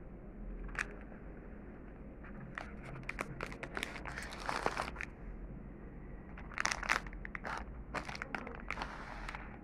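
Plastic wrapper of a Fantoche Triple Chocolate alfajor crinkling and crackling in several bursts as it is handled.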